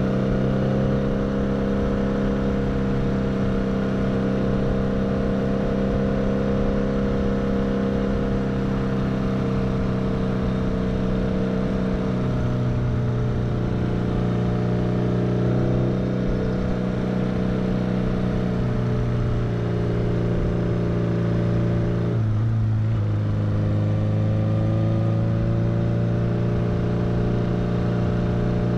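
Kawasaki GT 550 café racer's inline-four engine running under way at steady revs. The engine note drops about twelve seconds in, and again more sharply about twenty-two seconds in before climbing, as with a gear change.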